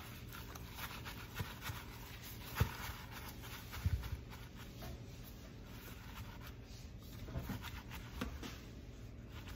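Soft rubbing and rustling of a paper towel and plastic-gloved hands dabbing washed raw beef dry in a stainless steel bowl, with a couple of light knocks against the bowl about a third of the way in, over a faint steady low hum.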